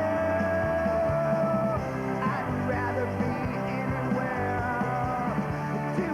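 Rock music with a sustained, wavering lead line over a full band.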